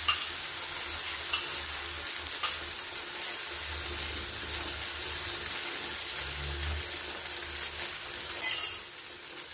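Omelette mixture frying in a hot pan: a steady sizzle as beaten eggs go in over tomatoes, onions and green pepper, with a few light clicks of a utensil.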